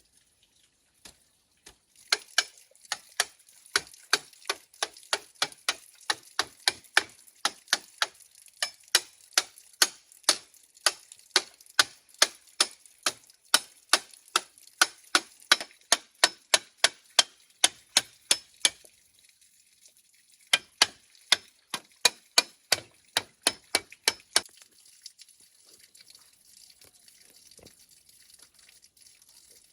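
A long run of sharp, evenly paced knocks, about two to three a second, such as a blade or hammer striking wood or bamboo. They break off briefly past the middle, resume for a few seconds, then stop.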